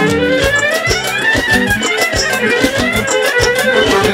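Live band music: a clarinet plays a winding melody over a steady drum beat.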